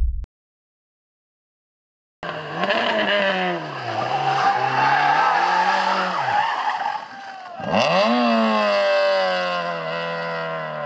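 Hill-climb race car engine at full throttle, revs rising and falling sharply at each gear change, then a deep drop near eight seconds as it slows for a corner and pulls away again. It starts after about two seconds of silence.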